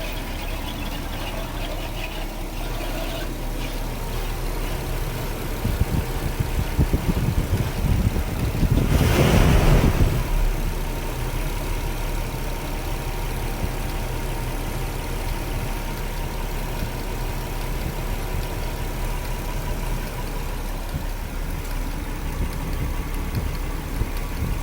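Nissan Cedric PY31 engine running at idle with a noise from the distributor, which the owners put down to the distributor's centre shaft running dry of oil. About six seconds in it turns rough and louder, peaks around nine to ten seconds, then settles back to a steady idle.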